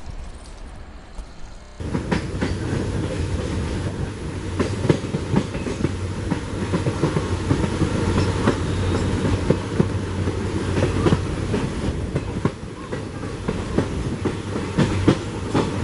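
Train wheels running on the rails: a dense clatter of wheel clicks over rail joints above a steady low hum, starting abruptly about two seconds in.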